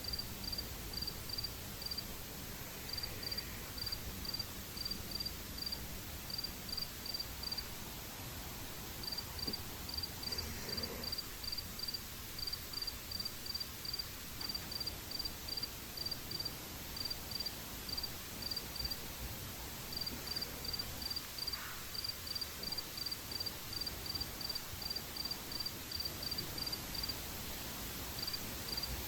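Crickets chirping at night: a steady high-pitched chirp repeated about three times a second, in long runs broken by short pauses.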